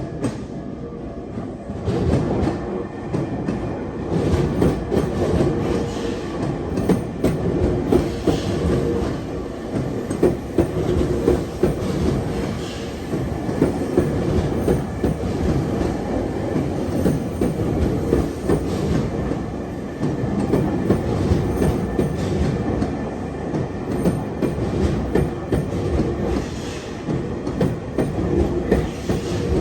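Tokyu electric train passing, the wheels clacking over rail joints throughout.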